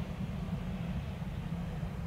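Pilatus PC-21's PT6A turboprop running at taxi idle, heard as a steady low rumble.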